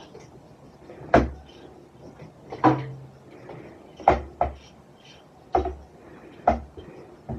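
A cat's toy ball knocking against kitchen cabinets and the oven: about six sharp knocks at uneven intervals, some with a low thud.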